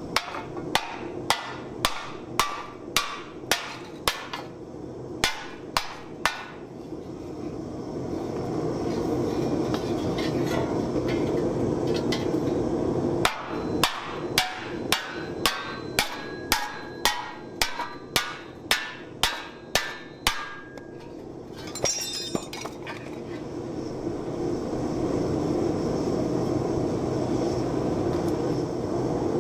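Hammer blows on a sheet-steel wok blank being dished over a wooden stump, about two a second with a faint ring after each, in two runs with a pause between. A gas forge hisses steadily underneath, and a short rasp comes about three quarters through.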